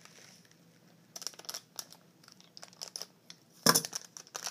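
Foil blind bag crinkling and crackling as it is handled and opened, in scattered bursts starting about a second in, with one louder sharp crackle near the end.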